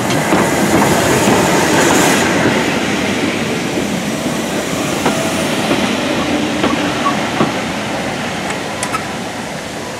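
Steam train pulling into the station: LMS Ivatt Class 2 2-6-2 tank locomotive 41312 runs past, then its coaches, their wheels clicking over the rail joints. The noise is loudest in the first couple of seconds and slowly fades as the coaches slow.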